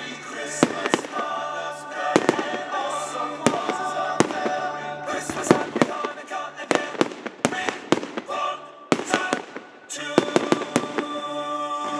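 Aerial firework shells bursting in quick, irregular succession, sharp bangs and crackles one after another, over music with steady held notes.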